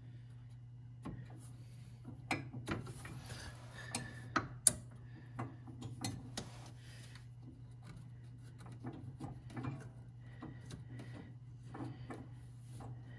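Small clicks and rubbing of a hydraulic hose nut and metal lines being handled as the threaded nut is started by hand onto its fitting, the sharpest click about four and a half seconds in, over a steady low hum.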